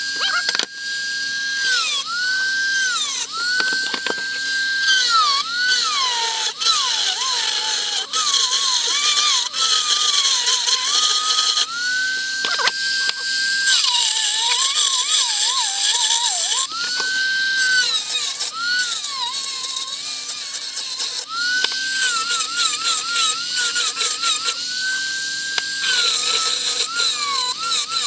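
Dremel rotary tool running at high speed, its whine dropping in pitch and wavering each time the bit bites into the table saw insert being ground to fit, then climbing back up as it comes off the work. It repeats over and over.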